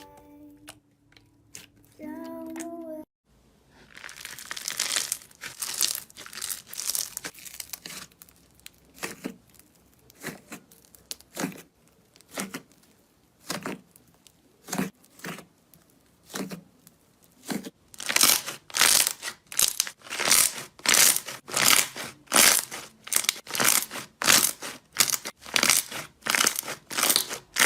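Slime being squeezed and pulled by hand, giving crackling, crinkly squishes. It starts irregular, then from about eighteen seconds in settles into regular presses, about two a second.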